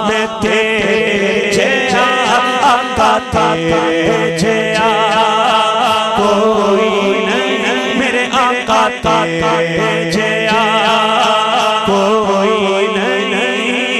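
A male naat reciter sings a long, wavering, ornamented vocal line through a microphone and PA system. A steady held drone runs underneath the voice.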